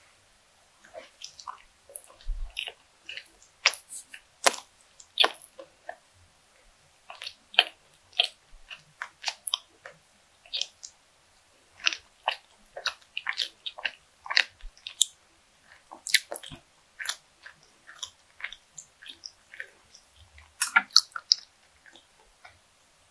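Close-up chewing of soft cream-filled bread: many short, wet mouth clicks and smacks. Near the end she drinks milk from a glass.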